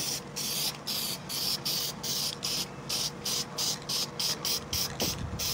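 Aerosol spray can of clear coat lacquer spraying in rapid short bursts, a pulsing hiss several times a second, laid on thick.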